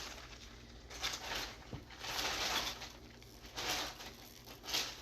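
Clothes being handled and sorted: fabric rustling in four short bursts, the longest about two seconds in.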